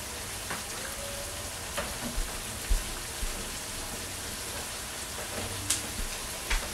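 Ground beef frying in a pot with sautéed bell pepper and onions: a steady sizzle, with a few sharp pops scattered through it.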